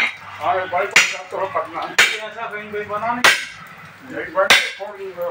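Five sharp metallic strikes of a steel tyre bar working a truck tyre, roughly a second apart.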